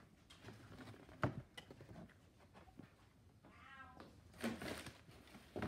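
A domestic cat meows once, a short rising-and-falling call about three and a half seconds in. A sharp knock comes a little over a second in, and there is rustling near the end.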